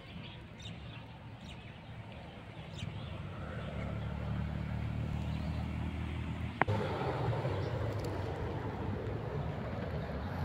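Steady low outdoor rumble that grows louder a few seconds in, with one sharp click just past the middle followed by a broader hiss.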